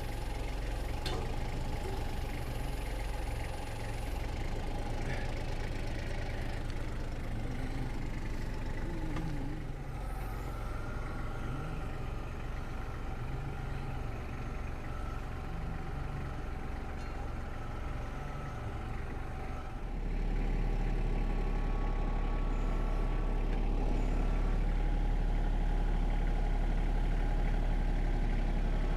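An engine running at a steady idle, which gets louder and deeper about twenty seconds in.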